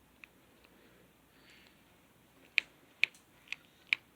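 Dial of a combination padlock being turned, clicking at an even pace of two to three clicks a second from a little past halfway, after a quiet start with one faint click.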